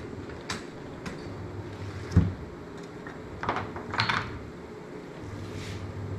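Scattered light clicks and knocks of a cutting string being worked against a slatted wooden board while a giant rice cake is sliced, with one louder low thump about two seconds in and a cluster of sharper clicks a little later, over a steady low hum.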